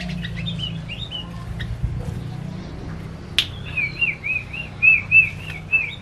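Male yellow-vented bulbul singing: a short run of bubbly chirps near the start, then after a sharp click about three and a half seconds in, a longer run of loud, evenly repeated chirps at about four a second.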